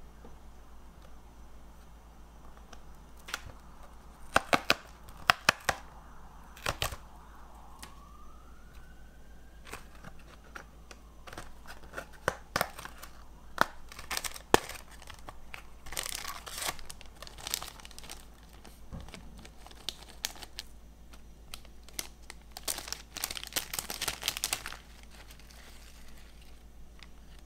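Cardboard Pretz snack box being torn open, with a run of sharp snaps, followed by the foil inner pouch crinkling and rustling as it is pulled out and handled. The rustling is densest shortly before the end.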